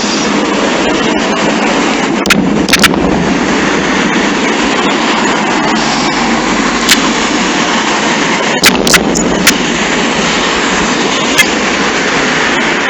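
Fireworks display through a flip phone's microphone: a loud, steady rushing noise with a handful of sharp cracks at irregular moments, the loudest pair coming about two-thirds of the way in.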